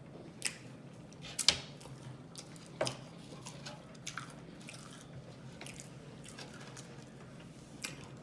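Eating sounds of fried food being bitten and chewed, with a scattering of short wet smacks and mouth clicks. The loudest comes about a second and a half in.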